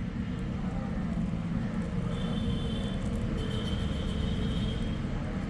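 Road traffic noise: a steady low rumble, with a high steady tone sounding twice, briefly about two seconds in and longer from about three and a half seconds.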